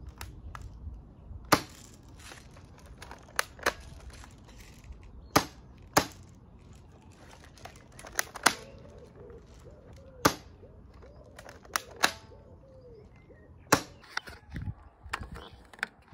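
BB gun firing single shots: about ten sharp cracks at uneven intervals, a few fainter clicks near the end.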